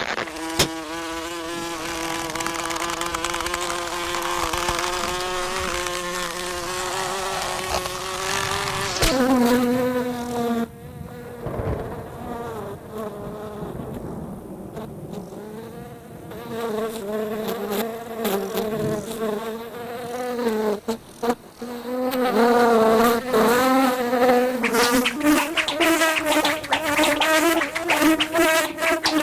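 Animated insect's wing buzz, a loud, pitched drone that holds steady and rises slightly, then drops in pitch about nine seconds in. It fades lower for a while, then comes back wavering up and down, mixed with many sharp clicks over the last several seconds.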